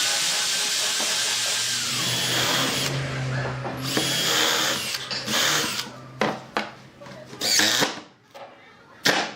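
Power tool, of the drill kind, running in bursts: one long run of about four seconds, then several shorter bursts.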